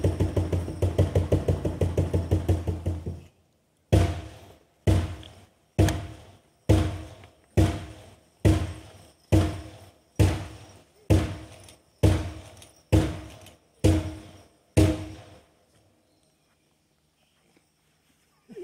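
Ceremonial drum beaten in a fast steady roll, which stops about three seconds in; after a short pause come thirteen slow single strikes a little under a second apart, each ringing out briefly.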